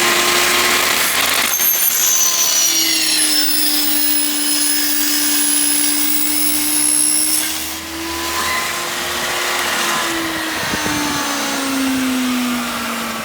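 Harbor Freight table saw's motor running with a steady whine, started from the on-off switch that was wired in to bypass its failed reset switch: the repair works. The pitch dips briefly in the middle and sags lower near the end.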